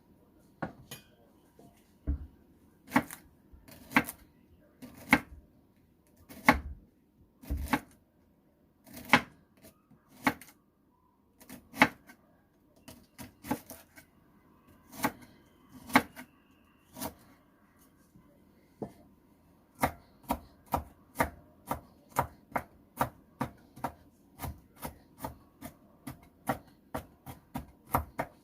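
Knife chopping vegetables on a cutting board: single strokes about a second apart, then a quicker even run of about two cuts a second near the end.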